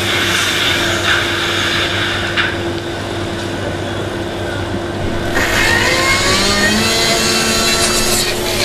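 A loud, dense mix of layered noise sound effects with a steady hum and engine-like vehicle noise; the mix brightens and changes about five seconds in.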